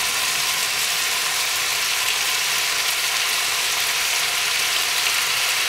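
Pork and sliced onions sizzling steadily in a hot frying pan as kimchi is slid in from a cutting board.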